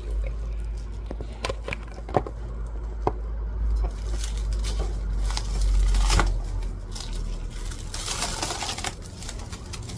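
Handling noise: scattered knocks and clicks with a low rumble as the phone is moved and things are handled on the desk, with a stretch of rustling about eight seconds in.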